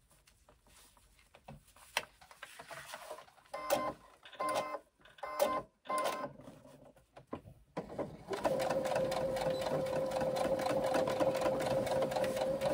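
Brother electric sewing machine stitching, first in a few short bursts, then running steadily from about eight seconds in.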